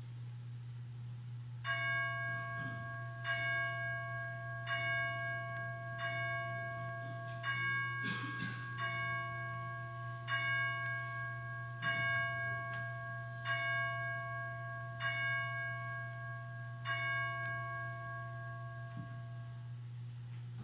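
A bell tolling one note, about eleven strokes roughly a second and a half apart, each left to ring. A low steady hum runs underneath, and there is a brief knock just past the middle.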